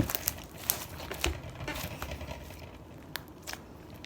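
Homemade slime being worked by hand, giving a string of irregular sharp pops and clicks as air bubbles in it burst, most of them in the first two seconds and a few more later.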